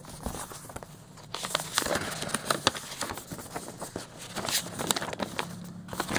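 Folded paper poster being unfolded and handled: crisp paper rustling and crackling, quieter at first and busier from about a second and a half in.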